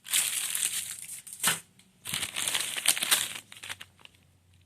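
Wrapped firecracker packs crinkling and rustling as they are handled and shuffled, in two stretches with a sharp click between them.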